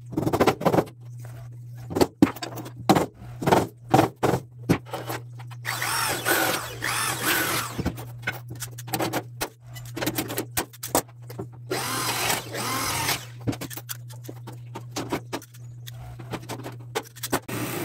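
A string of sharp hammer knocks on a steel gate frame in the first few seconds. Then a corded electric drill runs in two bursts of a couple of seconds each, about six and twelve seconds in, its pitch wavering as it works into the steel.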